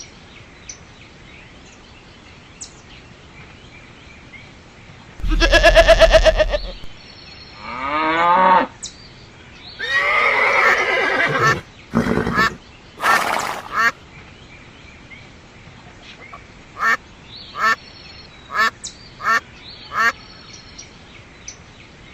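Ducks quacking: a few louder, longer calls about five to eleven seconds in, then a string of short, clipped quacks, over faint birdsong.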